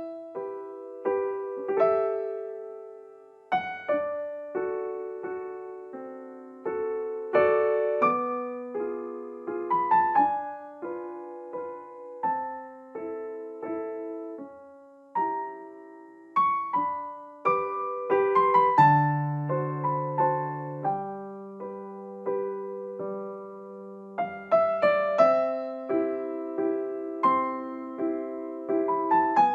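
Background piano music: single struck notes and chords played at an unhurried pace, each note dying away.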